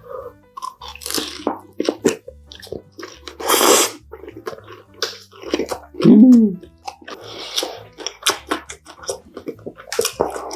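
A person chewing food close to the microphone, with crunching, wet mouth clicks and smacks. There is a loud hissing burst about three and a half seconds in, and a short hum falling in pitch about six seconds in.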